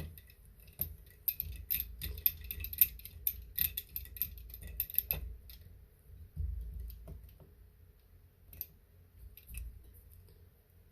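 Small screwdriver turning a tiny screw into a laptop's plastic bottom cover: a run of quick, light ticks and clicks for several seconds, then a few scattered clicks.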